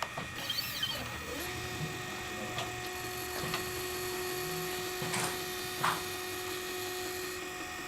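Stepper motors of a Shapeoko desktop CNC mill whining with a steady tone as the machine runs its Hello World test program, the whine starting about a second and a half in, with a couple of short clicks along the way.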